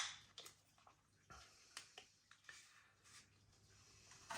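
Near silence with a few faint clicks and taps from a beer can being handled, with a slightly louder tap near the end. The ringing tail of a sharp crack dies away right at the start.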